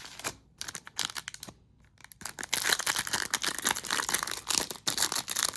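A few light rustles of trading cards being handled. Then, about two seconds in, the wrapper of a 2021-22 Upper Deck hockey card pack is torn open, with dense, continuous crinkling and tearing of the wrapper.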